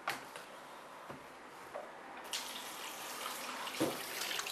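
Kitchen tap turned on about two seconds in, water running and splashing into a stainless steel sink and over hands rinsing raw chicken in a glass bowl. A few light knocks before and during the running water.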